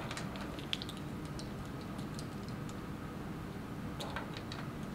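Light clicks and taps of a measuring spoon and a small vanilla bottle being handled, bunched in the first second or so and again near the end, over a steady low room hum.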